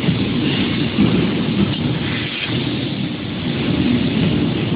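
Steady rumbling, hissing machine noise from a robot-arm fiber laser cutting machine at work on sheet metal.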